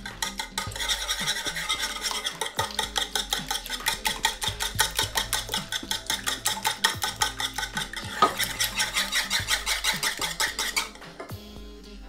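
Metal wire whisk beating raw eggs in a bowl: fast, even scraping and clicking strokes at about five a second. There is one sharper clink about eight seconds in. The whisking stops about a second before the end.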